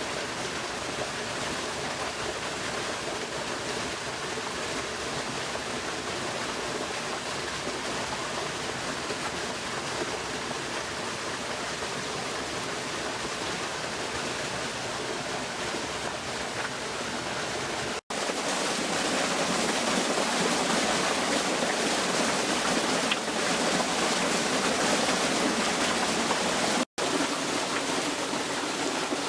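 Water flowing in a stream, a steady rushing noise. About two-thirds of the way through it cuts off abruptly and comes back louder and brighter, with another brief dropout near the end.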